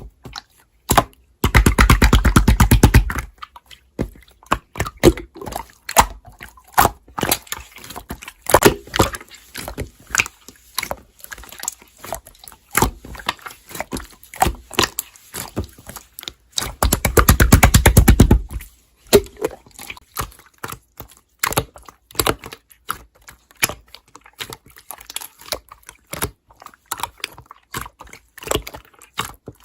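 Slime being squished and pressed by hand, giving irregular wet clicks and pops, with two bursts of rapid, dense crackling: one about two seconds in and one a little past the middle.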